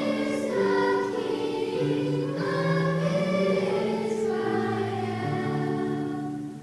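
Children's choir singing a Christmas song in unison, the held notes stepping from one pitch to the next and the singing stopping near the end.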